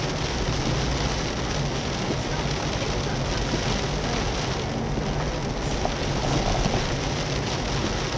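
Heavy downpour falling on a car's roof and windscreen, heard from inside the cabin as a steady, dense hiss.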